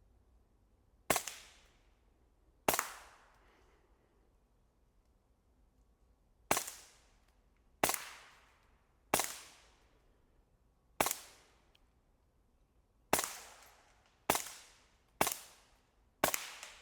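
Ten suppressed .22LR shots from an HK G36 .22 rifle fitted with a JK Armament suppressor, fired semi-automatically at an uneven pace, each a sharp crack with a short fading echo.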